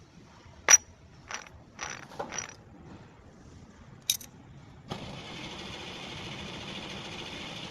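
Metal parts and tools clinking during bevel gear fitting on a truck differential: a sharp click, then three quicker clinks and scrapes, and another click a few seconds in. A steady hiss-like mechanical noise starts about five seconds in and runs on.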